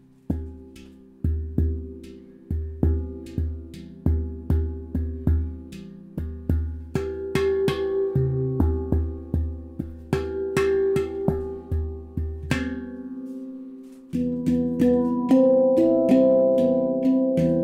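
Stainless-steel Baopan handpan in C aegean tuning played by hand. The low central ding note is struck over and over, about two strikes a second, each ringing on. After a short pause near the end, the outer tone fields are played, their higher notes ringing together.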